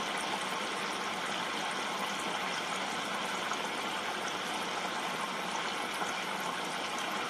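Potato chips frying in hot oil in a small electric deep fat fryer with the lid off: a steady sizzling hiss of bubbling oil. The chips are on their second fry at about 175 °C and nearly done.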